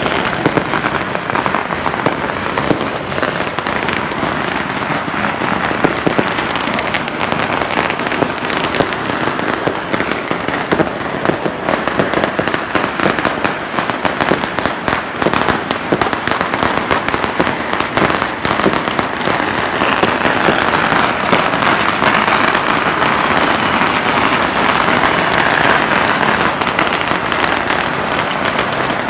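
Firecrackers and fireworks going off together in a dense, unbroken crackle of many small bangs, growing thicker and steadier about two-thirds of the way in.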